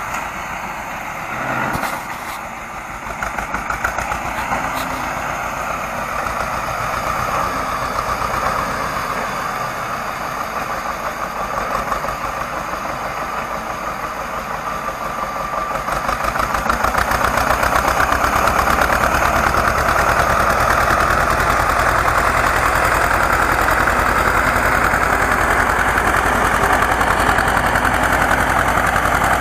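Small tractor's engine running steadily as it pulls a horse-drawn potato digger through the soil, growing louder about halfway through as it comes near.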